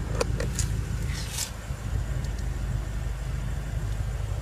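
A few small plastic clicks and a brief scrape in the first second and a half as the rear door's pull-out ashtray is worked by hand, over a steady low rumble.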